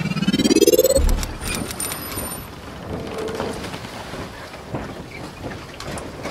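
Logo-intro sound effects: a rising sweep that lands on a deep boom about a second in, a brief high shimmer, then a steady noisy wash with scattered ticks.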